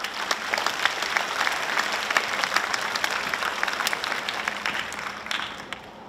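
A large crowd of students applauding, many hands clapping densely together, dying away near the end.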